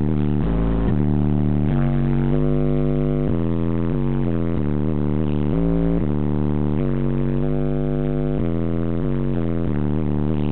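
Four Rockford Fosgate 15-inch subwoofers playing a bass-heavy music track at high volume, a line of held bass notes stepping in pitch every second or so, in a home-built system that its builder rates at 149–150 dB.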